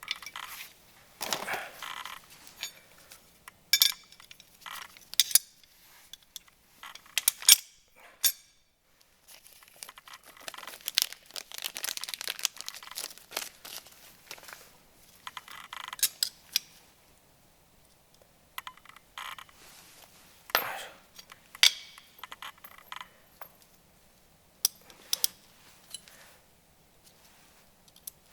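Small metal brake parts clinking and knocking together as they are handled, with rustling and crinkling like plastic packaging in between, in a series of scattered, irregular sounds.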